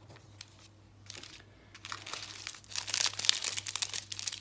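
Small plastic bags of diamond painting drills crinkling as they are picked up and handled. A few light clicks come first, then steady crinkling starts about halfway through.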